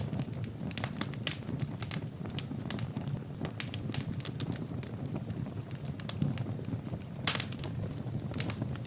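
Wood fire burning in a fireplace: frequent sharp crackles and pops over a steady low rumble of flames. A quick cluster of pops comes about seven seconds in.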